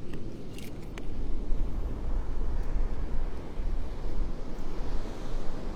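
Wind buffeting the microphone: an uneven low rumble, with a couple of faint clicks about a second in.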